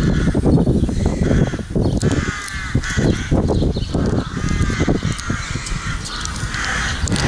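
Crows cawing repeatedly, a call every second or so, over a loud, uneven low rumble.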